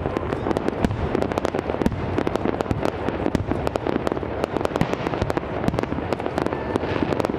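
Aerial fireworks display: a continuous barrage of shell bursts, many bangs a second, over a steady rumble and crackle.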